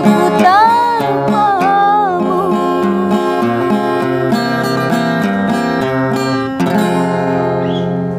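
A woman sings the end of a melody line, with sliding ornaments, over a strummed acoustic guitar. About two seconds in her voice stops and the guitar strums chords on alone, moving to a new chord near the end.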